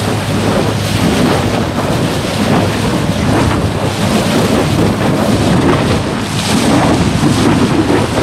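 Wind buffeting the microphone and water rushing and splashing against an electric SUP board as it runs fast over the sea. A steady, loud, even noise with no distinct tone standing out.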